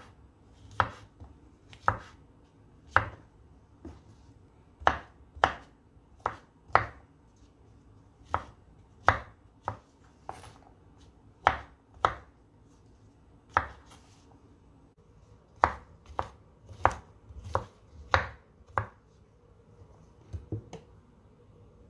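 Knife chopping white button mushrooms on a wooden cutting board: a sharp knock each time the blade meets the board, unevenly spaced at roughly one a second, with short pauses between runs.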